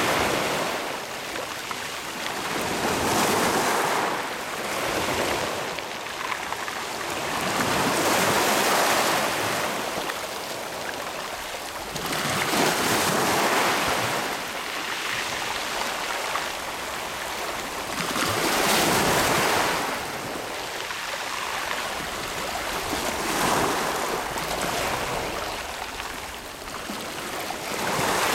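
Small sea waves washing over and splashing against a shoreline rock. The surf swells and ebbs about every four to five seconds.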